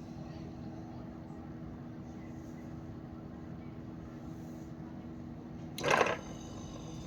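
Guzzanti GZ 594 dehumidifier running with a steady hum that holds a couple of low steady tones. About six seconds in, a brief, much louder noisy burst cuts across it.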